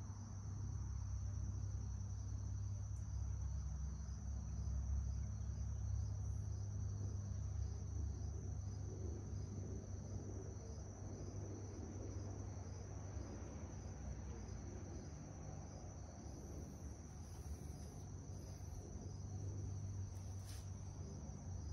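A steady high-pitched insect trill, like a cricket, runs over a low hum, while motor oil is poured from a bottle into the push mower's oil fill.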